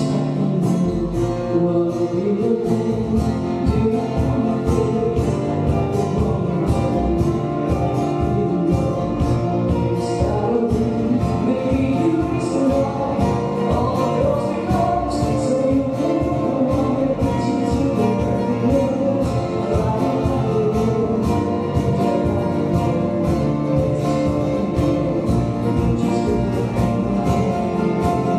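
Live acoustic band playing a pop cover: a female voice sings over acoustic guitar, upright double bass, drum kit and keyboard, with a steady beat.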